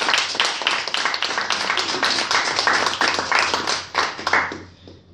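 Small group applauding, with one pair of hands clapping close by. The clapping dies away about four and a half seconds in.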